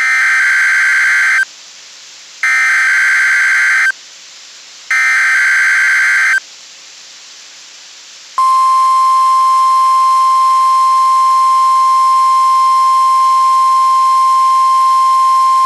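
NOAA Weather Radio Required Weekly Test signals: three SAME digital header bursts, each about a second and a half long with short pauses between them. Then, about eight seconds in, the steady single-pitch 1050 Hz warning alarm tone begins and holds.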